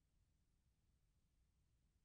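Near silence: only a faint, steady noise floor with no distinct sound.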